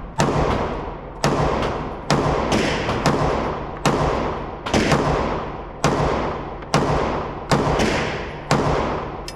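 Gunshots fired at an irregular pace, about fifteen in nine seconds, some close together. Each shot is sharp and followed by a long echoing tail.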